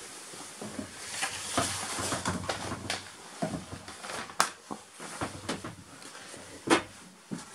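Footsteps going down a few steps inside a boat, with irregular knocks, scuffs and rustling, and a louder thump near the end.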